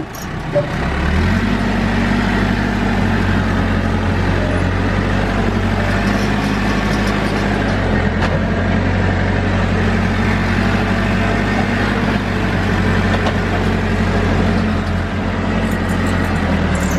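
Caterpillar backhoe's diesel engine revving up about a second in and running steadily at high throttle while the machine works, easing off near the end.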